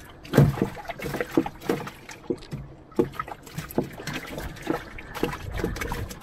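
Irregular knocks and taps against the wooden hull of a small canoe, over water lapping and trickling.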